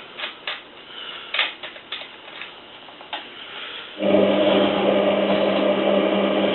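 Hotpoint 9534A washing machine in the wash stage of a hot cotton wash. A few light clicks and knocks come while the drum is at rest, then about four seconds in the drum motor starts suddenly and runs on with a steady hum, turning the drum.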